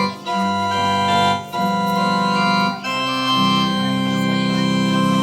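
Background organ music: held chords that change every second or so, with short breaks between them.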